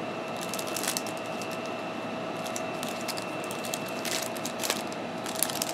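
Light, intermittent rustling and crinkling of a trading-card pack and its cards being handled, over a steady background hum.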